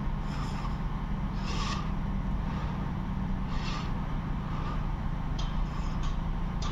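Crows cawing several times, short harsh calls about a second apart, over a steady low rumble.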